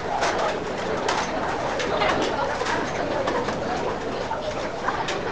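Restaurant din with many short clinks of spoons and dishes.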